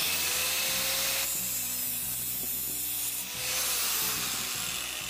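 Angle grinder switching on and spinning up with a rising whine, then its cutting disc grinding through the steel wire of a new clutch cable. The grinding eases and swells again, and the grinder winds down near the end.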